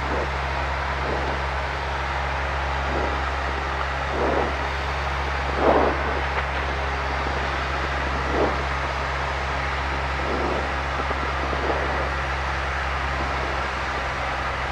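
Steady drone of a light single-engine aircraft's piston engine and propeller, heard inside the high-wing cabin on a landing approach, with a few brief louder swells.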